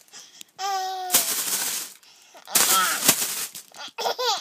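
Plastic crinkling in two noisy stretches, preceded by a short high held vocal sound about half a second in. High-pitched laughter starts near the end.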